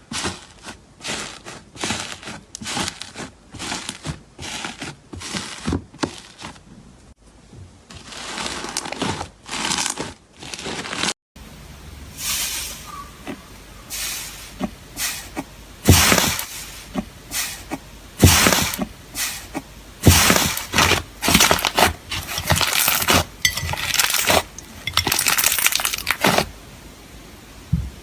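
Slime being squeezed and pressed by hand, giving quick crackling pops in irregular bursts, a few every second. About a third of the way in the sound cuts to another clip, where the pops come louder, with deeper thuds among them.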